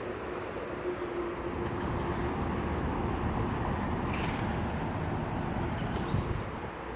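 Street traffic noise: vehicles running past, a steady rush that swells a little through the middle and eases near the end, with a faint engine hum.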